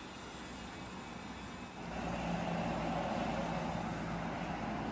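A motor engine running steadily, getting louder about two seconds in with a low, even hum.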